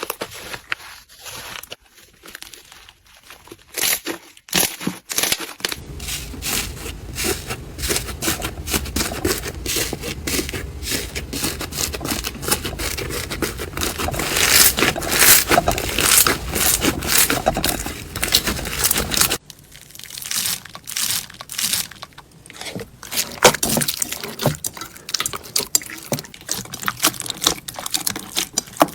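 Slime being squeezed and poked by hand, with dense crackling and popping clicks typical of crunchy slime. The texture shifts abruptly a few seconds in and again about two-thirds of the way through, as one clip gives way to another.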